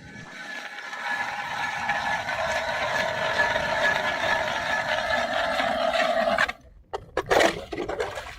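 Ice auger boring a hole through lake ice: a steady grinding scrape that builds over the first second and stops abruptly after about six seconds, then a few short knocks.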